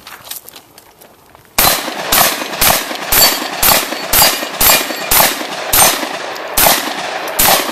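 Shotgun fired in quick succession: about eleven shots, mostly around half a second apart, beginning about a second and a half in.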